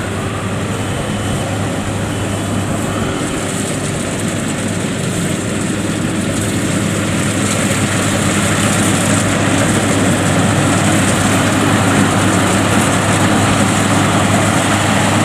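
FMWorld WD102 Pro rice combine harvester running while cutting and threshing rice, its turbocharged 102-horsepower Mitsubishi engine giving a steady drone. It grows a little louder in the second half as the machine comes closer.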